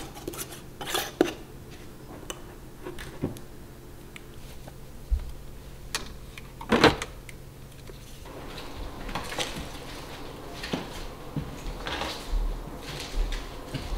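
Small clicks and knocks of household objects being handled: a metal lid screwed onto a glass mason jar at first, then one sharp knock as a plastic spray bottle is set into a cabinet about seven seconds in, followed by lighter rustling and soft knocks as items are moved on a wooden table.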